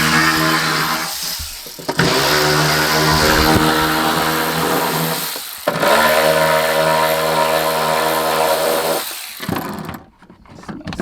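An electric hand power tool's motor running in three long runs of about three seconds each with short pauses between, spinning up at the start of a run.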